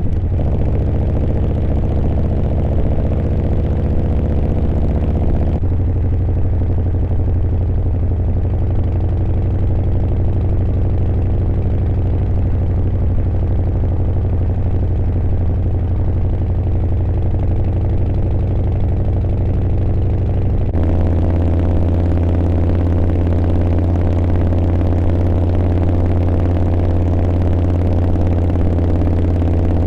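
Harley-Davidson V-twin motorcycle engine running steadily, with its low note changing abruptly about five seconds in and again about twenty seconds in.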